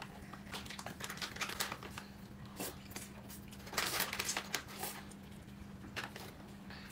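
Faint crinkling and rustling of food packaging being handled, in a few short spells, over a steady low hum.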